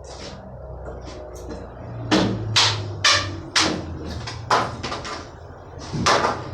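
Hammer knocking on a cat's-paw nail puller to pry wooden concrete form boards loose: about six sharp, ringing knocks. They start about two seconds in, with a low steady hum underneath.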